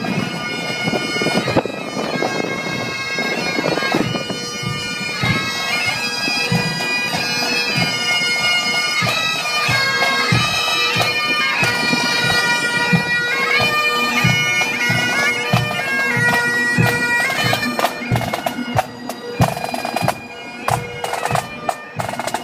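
Bagpipes playing a marching tune over their steady drone, with regular low beats underneath. The tune breaks off about eighteen seconds in, leaving a few sharp knocks.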